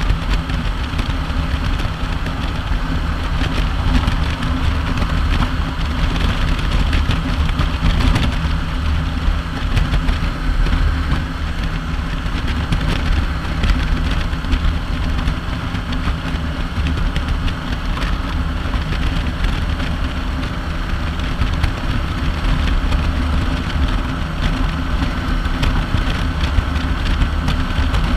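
Kawasaki Vulcan 900 LT's V-twin engine running steadily at highway cruising speed, under a heavy rush of wind over the microphone.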